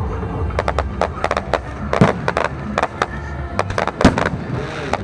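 Aerial fireworks going off in quick succession: a dense run of sharp cracks and pops, with heavier bangs about two seconds in and again about four seconds in.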